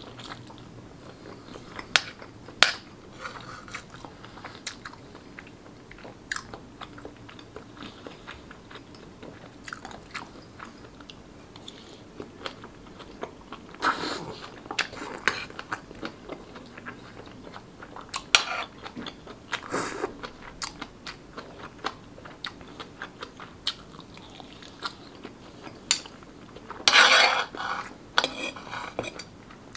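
Close-miked mukbang eating sounds: chewing soft yong tau foo in sauce, with many short sharp mouth smacks and clicks. There are a few louder wet slurps from the spoon, the longest near the end.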